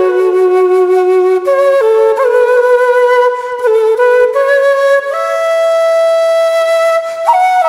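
Music: a single flute playing a slow melody of long held notes that step up and down, with a long high note held from about five seconds in.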